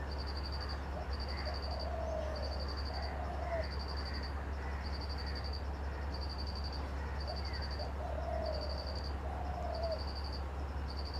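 Ambient sound over a steady low hum: an insect chirps in short pulsed trills about once a second, and twice a pair of short mid-pitched animal calls rises and falls.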